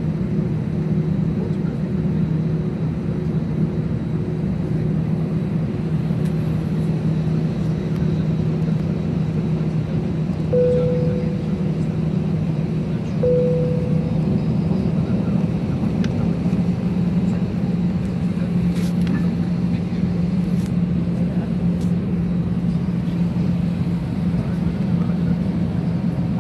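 Steady drone of an airliner cabin on the ground, with a strong low hum. Two short fading tones sound about ten and thirteen seconds in, and a few faint clicks come later.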